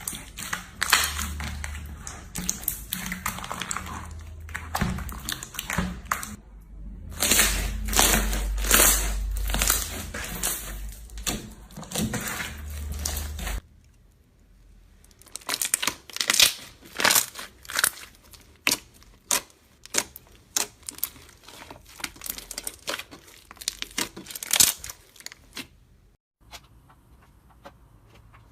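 Slime squeezed and pressed by hand, making dense crackling and popping clicks. About halfway through the sound changes abruptly to crisper, more separated clicks, which thin out near the end.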